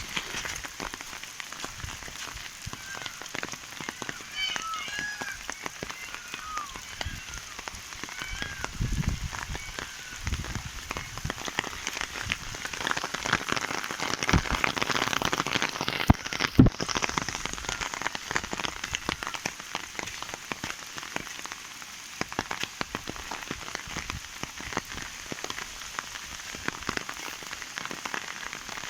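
Heavy rain pouring down, a dense patter of drops hitting ground and standing water. A few short chirping calls come through between about three and seven seconds in, and there is a single sharp tap about sixteen seconds in.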